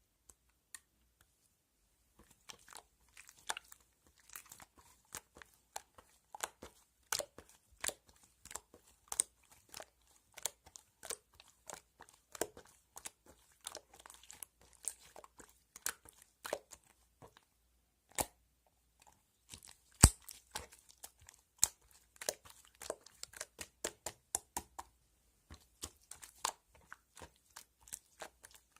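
Irregular crisp crunches and clicks, several a second, with a short pause about two-thirds of the way through.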